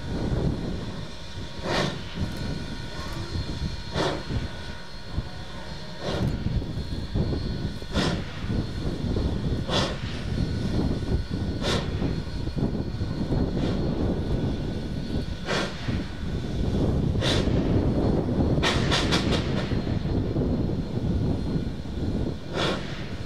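Steam locomotive working slowly: a sharp exhaust chuff about every two seconds over a steady low rumble, with a quick run of four chuffs about two-thirds of the way in.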